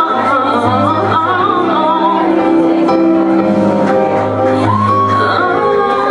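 A female R&B vocalist singing live, her voice wavering and sliding between notes over a sustained instrumental accompaniment with a steady bass.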